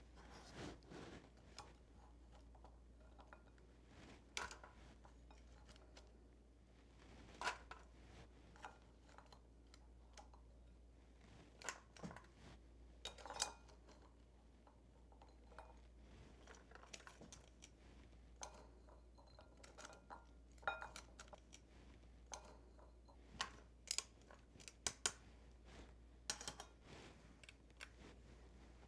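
Faint, scattered clicks and clinks of metal tongs and frozen sweet potato fries being placed piece by piece into a wire mesh fry basket.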